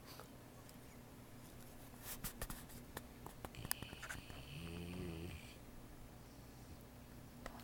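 A sleeping pet snoring: a run of small clicks and ticks, then one pitched snore about four and a half seconds in, lasting about a second.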